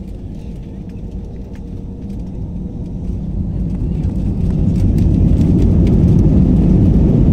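Jet engines of an Airbus A320-family airliner spooling up to takeoff thrust, heard inside the cabin: a low rumble that grows steadily louder over a few seconds and then holds, with small cabin rattles and clicks.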